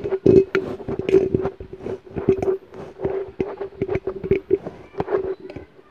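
Handling noise as a foam windscreen is worked onto the head of a BM800 condenser microphone: irregular rubbing, scraping and knocking, over a steady hum.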